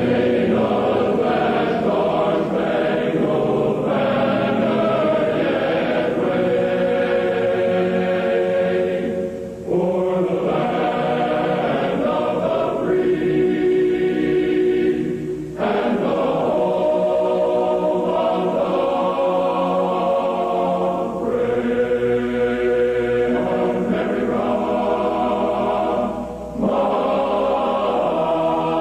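A choir singing slow, sustained chords in long phrases, with a few short breaks between them.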